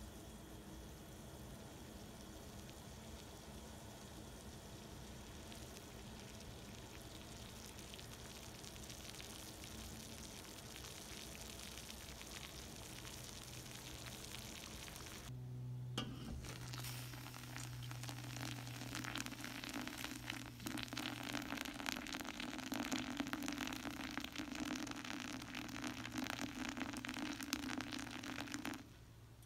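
Water heating in an enamel pot over a gas burner: a steady faint hiss. After a brief break about halfway in comes a louder crackling, sizzling bubbling of hot water, which cuts off abruptly near the end.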